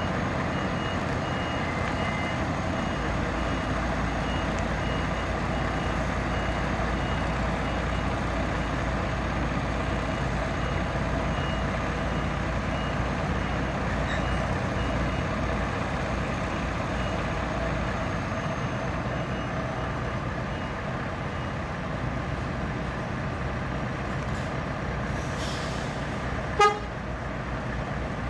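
Heavy diesel engines of the truck and crawler crane running steadily, with an evenly repeating high warning beep through the first two-thirds. Near the end, a brief hiss of air, then one short, loud horn toot.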